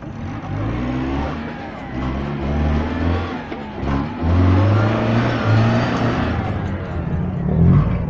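Off-road 4x4 SUV engine revving up and down as the vehicle drives through a muddy rut close by, with a surge of revs near the end.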